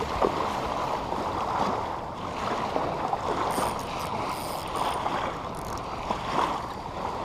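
Shallow saltwater sloshing and lapping with wind noise on the microphone: a steady, uneven rushing with small irregular splashes.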